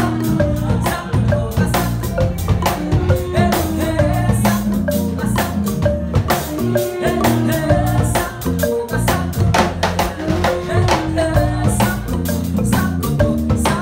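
Live Zimbabwean marimba band music: wooden marimbas playing over a deep stepped bass line, with drums, cymbal and women singing.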